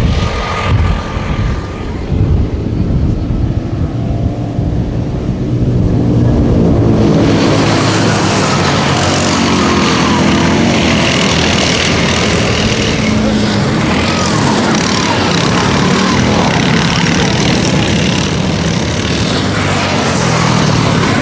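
Several autocross buggies racing on a dirt track, engines revving hard with rising and falling pitch as they shift and slide through the corners. About seven seconds in the sound turns closer and louder as the pack comes past.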